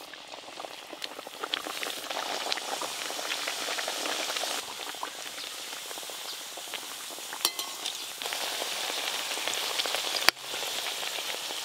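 Nimki (triangles of flaky dough) deep-frying in hot oil in a metal karai: steady sizzling and crackling that grows louder over the first couple of seconds, with a few sharp clicks.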